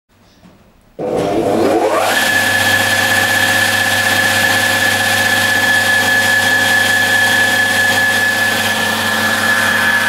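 Electric motor of a glass-edge belt grinding machine switching on about a second in, spinning up with a rising pitch over about a second, then running steadily at speed with a high whine.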